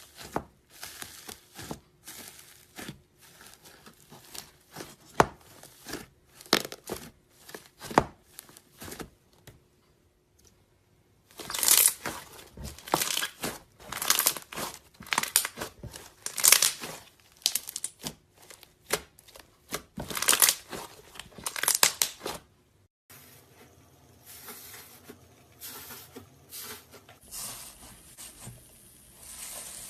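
Iceberg slime being pressed and squeezed, its dried, hardened crust crackling and crinkling in bursts of crisp crackles. The crackling pauses briefly about ten seconds in and turns softer over the last several seconds.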